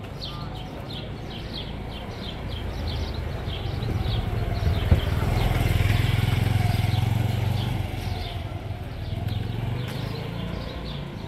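A motor vehicle passing close by: its engine drone swells over several seconds, is loudest about six seconds in, then fades.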